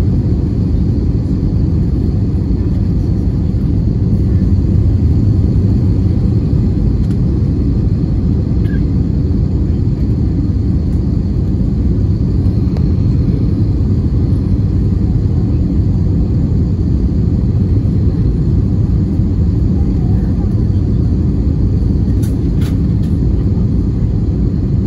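Steady low rumble of a jet airliner heard from inside the cabin on its landing approach: engine and airflow noise, with a faint high whine over it.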